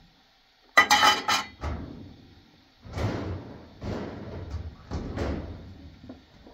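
Cookware and utensils being handled at a kitchen stove: a sharp rattling clatter about a second in, then four or five softer knocks and scrapes.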